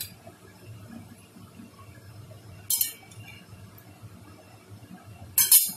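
A long-handled metal perforated skimmer clinking against a metal kadai twice, once a little before halfway and again, louder, near the end.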